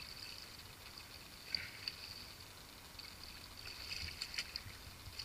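A hooked redfish thrashing and splashing at the surface of shallow water in short bursts: a couple of sharp splashes about one and a half seconds in, and a flurry of splashes near the end.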